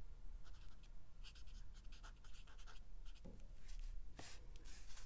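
Felt nib of a Copic alcohol marker scratching across paper in a quick run of short, uneven dabbing strokes, about three a second.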